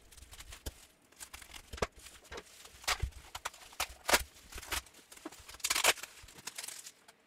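Scissors cutting packing tape on bubble-wrapped bundles of comics, then the bubble wrap crinkling and rustling as the bundles are pulled apart. Irregular clicks and crackles, with a few louder rustles about 3, 4 and 6 seconds in.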